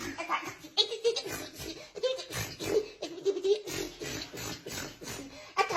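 People laughing in short, repeated bursts.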